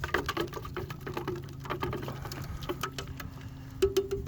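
Pigmented gel coat being stirred in a cup, the mixing stick making quick, irregular clicks and scrapes against the container over a steady low hum.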